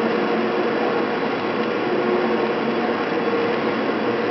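Cable car haul cable running over large turning sheaves in the sheave pit: a steady mechanical running noise with a few steady humming tones through it.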